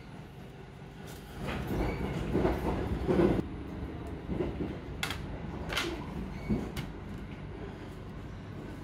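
Steady running rumble of the train carriage under close handling of a commemorative stamp set: a card slid out of its basket with a rustle, louder about two to three seconds in, then a plastic ink-pad case and rubber stamp knocking and clicking a few times, the sharpest about five to seven seconds in.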